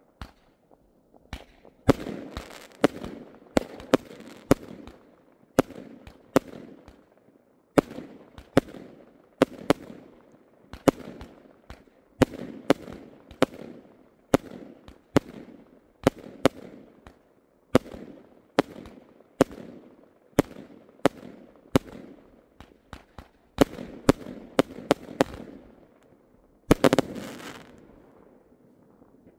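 Aerial fireworks bursting overhead in a long run of sharp bangs, often several in quick succession, each trailing a short echo. The loudest moment is a dense burst near the end, after which the bangs thin out.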